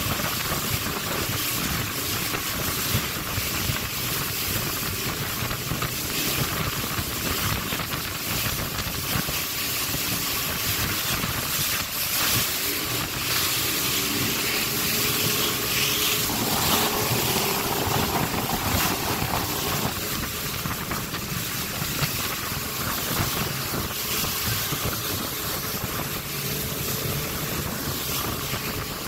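Outboard motor of a river boat running steadily under way, with water rushing and spraying off the hull and wind buffeting the microphone.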